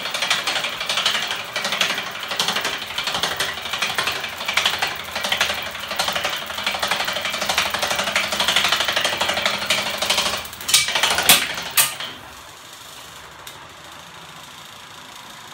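Homemade magnet-and-crankshaft mechanism on an aluminium frame, driven by an electric motor, running fast with a continuous rapid mechanical clatter. A few louder clacks come near the end. The clatter then stops suddenly about twelve seconds in, leaving a faint steady hum.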